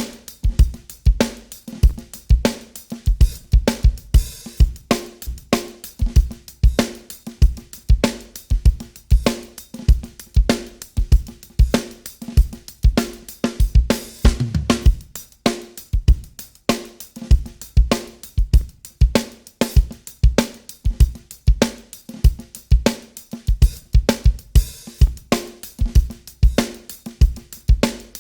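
Looped drum kit recording (kick, snare, hi-hat and cymbals) in a steady repeating groove, run through a TK Audio Transformer rack saturation unit. Its transformer stages are switched in and out, adding crunch and thickness to the low end and mid-range.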